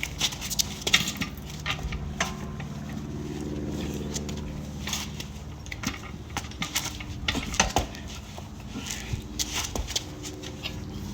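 Irregular metallic clicks and clanks of a lug wrench working on a car wheel's lug nuts, which are still tight with the tire's weight on them. A low hum swells and fades in the middle.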